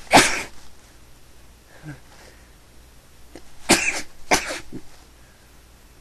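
A person sneezing three times: one sharp sneeze at the start, then two in quick succession about four seconds in. The sneezing is a fit the person suspects is an allergy.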